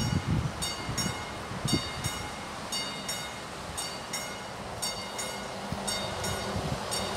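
Level-crossing warning bell ringing in a steady double ding, about one pair of strokes a second, while the crossing signals are active. A car's low rumble passes near the start.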